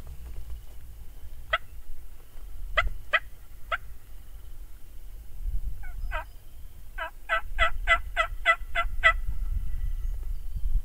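Wild turkey yelps: a few single notes, then a quick, evenly paced run of about eight yelps, some four a second, the cadence of a hen yelp sequence.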